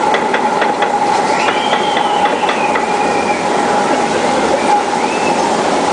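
Log flume lift-hill conveyor belt and its side rollers running as the boat is carried up: a steady mechanical hum with irregular clicking. A faint rising-and-falling squeal comes in about a second and a half in.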